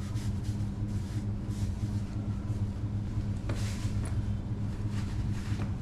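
A steady low hum runs throughout, with a few brief rustles of cloth and boot leather as trousers are pulled down over riding boots and the wearer stands up.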